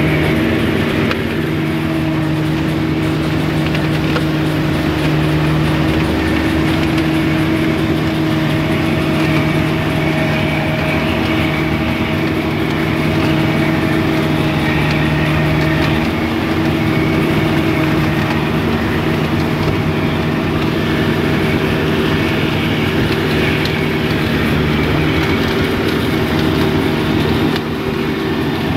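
Kubota DC-35 rice combine harvester running, its diesel engine and threshing works giving a loud, steady drone with an even hum.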